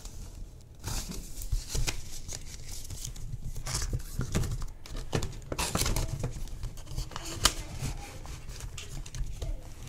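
Paper banknotes rustling and crinkling as a handful of bills is fanned and counted by hand, with translucent binder envelope pockets and pages being turned and cash slid out of a pocket. Irregular short crackles and rustles, with no steady rhythm.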